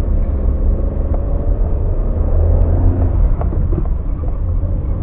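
Suzuki Alto 800 running, a low, steady rumble of engine and road noise.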